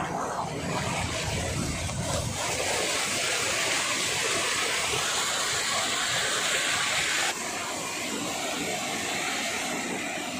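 Water of a small waterfall rushing and splashing over rocks, a steady hiss-like rush. About seven seconds in it changes abruptly to a slightly quieter, duller rush.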